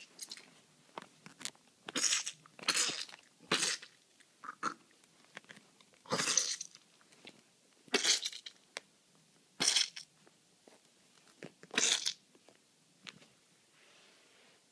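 A run of short, sharp hissing bursts, about one every one to two seconds, from a hand-acted fight between plush toys.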